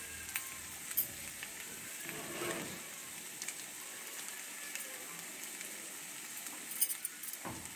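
Spiced taro root (arbi) frying in oil in a pot as its masala roasts: a steady sizzle with scattered crackles, a few sharper ones about a second in and a cluster near the end.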